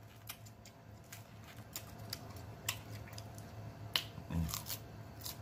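Close-miked eating: scattered soft clicks and mouth smacks as a forkful of food is taken and chewed, over a faint steady low hum.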